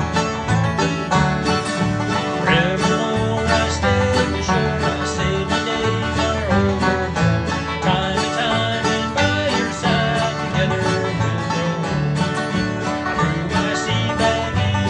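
Background music: a fast, busy string-band tune with quickly plucked notes, in a bluegrass or country style.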